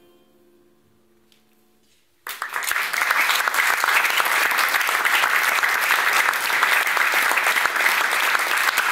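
The last held notes of the music die away, and a little over two seconds in an audience suddenly breaks into applause that carries on steadily.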